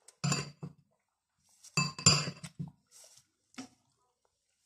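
Metal spoon clinking and scraping against a ceramic bowl and plate: a short cluster of clinks just after the start, a louder cluster around two seconds in, then a few lighter taps.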